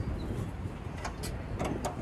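A few light clicks and knocks as a man climbs onto a crawler tractor and handles its controls, over a low steady rumble.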